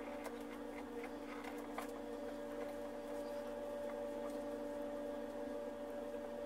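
Steady electrical hum from a hot-tip plastic welding pen as its blade melts plastic, with a few faint ticks and crackles in the first two seconds.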